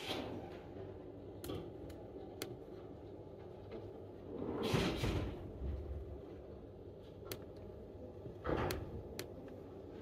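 Quiet library room tone with a few sparse clicks of laptop keys being typed. A louder brief swishing thump comes about halfway through, and a smaller one near the end.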